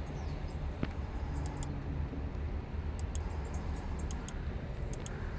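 Steady low background hum with a sharp click about a second in and a few faint high ticks later on.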